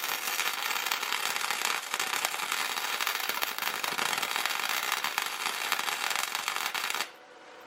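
Electric arc welder crackling steadily as weld is built up on a broken exhaust manifold stud, the heat meant to break the seized stud loose. The arc cuts off suddenly about seven seconds in.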